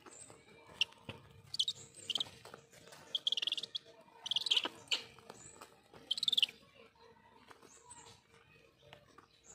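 Shrill, high-pitched squealing calls in short bursts, several falling in pitch, coming in clusters over the first six and a half seconds. Light clicks and scuffling come from Brahminy kites jostling over food.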